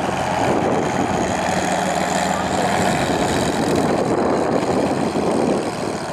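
Heavy trial truck's diesel engine running hard at full throttle as the truck climbs a steep dirt slope. The sound is loud and steady throughout.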